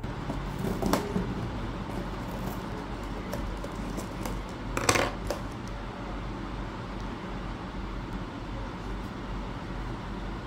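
Paper and cardboard packaging being handled during an unboxing: a click about a second in, a louder crackle of about half a second near the middle, and a few lighter clicks, over steady room noise.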